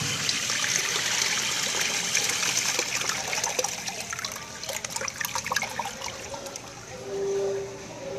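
American Standard Washbrook urinal (1.0 gallon per flush) flushing through its flush valve: a rush of water through the bowl that thins out to trickling after about five seconds. A steady hum starts near the end.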